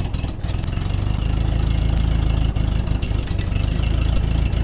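Ditch Witch R65 trencher's gasoline engine running steadily just after a cold start on stale fuel, with the choke being worked. There is a brief dip in level right at the start before it settles.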